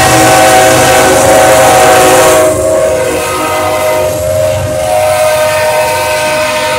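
Kansas City Southern diesel locomotive's air horn sounding a steady multi-note chord over the rumble of the passing freight train, a little quieter from about two and a half seconds in.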